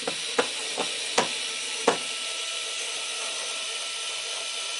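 Xiaomi Mi cordless electric screwdriver running steadily as it drives a screw into a wall, a steady high motor whine with about five sharp clicks in the first two seconds.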